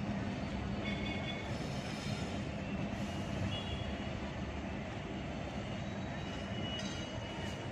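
Steady rumble of an LHB passenger train's coaches rolling away along the track, with a few faint high-pitched tones over it.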